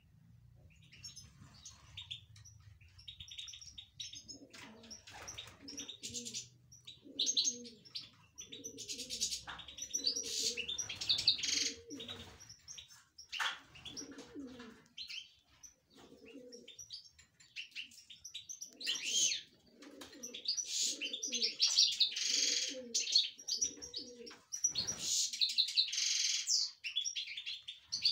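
Caged European goldfinch in full, excited song: rapid high twittering and trilled phrases. Underneath, a lower-pitched call from another bird repeats in series, about once a second, through most of the song.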